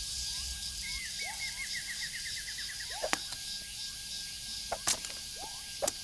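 Forest ambience of small animal calls: scattered short chirps, a quick run of chirps about a second in, and a thin steady whine underneath. Three sharp clicks come in the second half.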